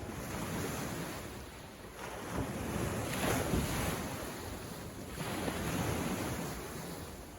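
Sea waves breaking and washing ashore, surging to its loudest about three seconds in and again near the end.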